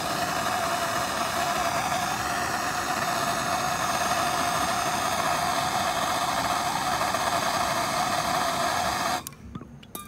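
Handheld gas torch burning with a steady roaring hiss and a faint whistling tone while heating a seized refrigerator ice auger motor. It cuts off suddenly about nine seconds in as the torch is shut off.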